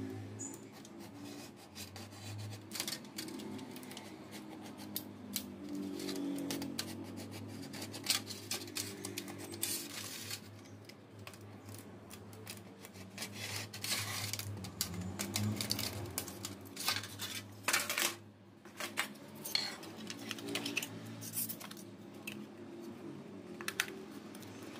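Thin aluminium foil tray being cut with a snap-off utility knife and handled: irregular crinkling, scraping and crackling of the foil, with sharp clicks.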